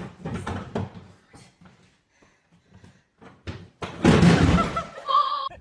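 Light knocks and shuffling, then about four seconds in a loud crash of a person falling onto the floor, followed by a brief high-pitched cry.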